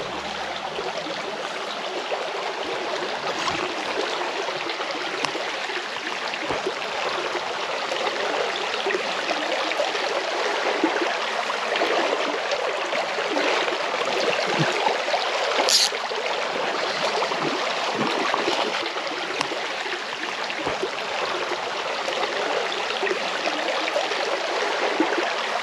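Small stream running over stones: a steady rush and trickle of water.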